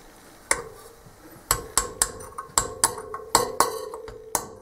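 A steel snap ring is being worked into its groove in a dirt-bike front wheel hub with a thin steel tool. It gives a string of sharp metallic clicks and taps, one about half a second in and then about three a second from about a second and a half in, each with a short ringing tone.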